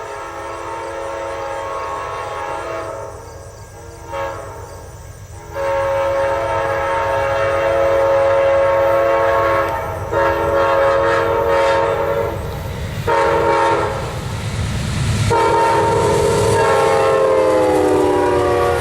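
Horn of an Amtrak GE P42DC diesel locomotive sounding a chord in a series of long and short blasts at a level crossing. Near the end the pitch slides down as the locomotive passes. The train's rumble rises underneath.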